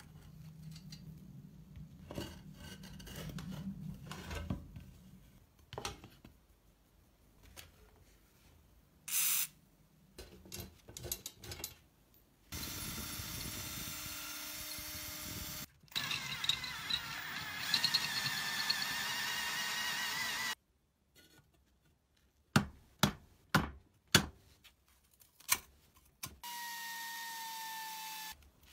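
Workshop tool sounds on a rusty metal bread cutter. Hand tools scrape and pry at the blade's fixing, then a power drill runs steadily for several seconds as it drills out a rivet. A series of sharp knocks follows, and near the end a power tool spins a brass wire brush against the rusty metal.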